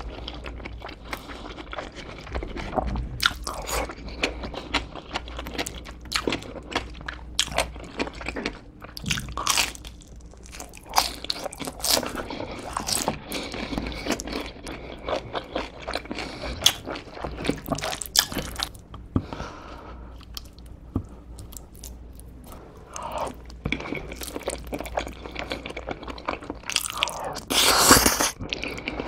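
Close-miked chewing and crunching of food: wet mouth clicks and crisp bites, as crispy fried pork (guobaorou) and saucy jajang are eaten. Near the end, a louder scrape as a silicone spoon scoops from the plate.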